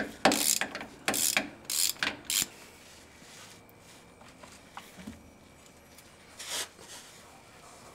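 Hand socket ratchet clicking in a run of quick strokes over the first couple of seconds, then lighter handling noise with one more short burst near the end.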